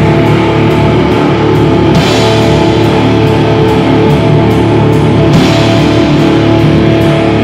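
Live rock band playing loud: electric bass and a drum kit, with cymbal crashes about two seconds and five seconds in.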